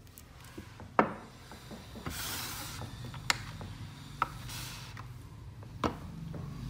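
Handling noises on a wooden tabletop as a digital kitchen scale is slid into place and the flashlight is stood on it: two short scraping rubs and four sharp knocks, spread across the few seconds.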